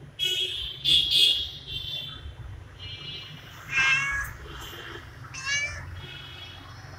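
Orange tabby cat meowing over and over in short, high-pitched calls.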